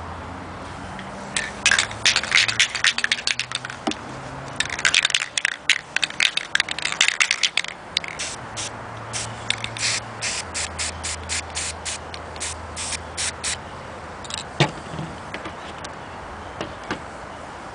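Aerosol can of Krylon Fusion spray paint hissing onto a paper plate, first in two longer bursts, then in a run of quick short spurts, about two a second. A single sharp knock comes near the end.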